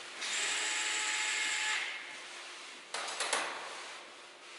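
Cordless drill running for about a second and a half as it works a screw on a capacitor's terminal, then a few sharp clicks about three seconds in.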